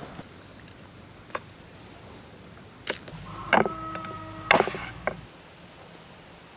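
Large kitchen knife cutting through a raw whole chicken's joints on a wooden cutting board: sharp cracks and knocks, loudest about three and a half and four and a half seconds in. Between them comes a steady squeaking whine lasting a little over a second.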